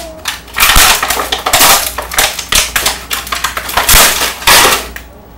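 A hardened sheet of glass candy (cooked sugar) cracking and snapping as it is pried off crinkling aluminium foil: a quick, irregular run of sharp crackles that dies away near the end.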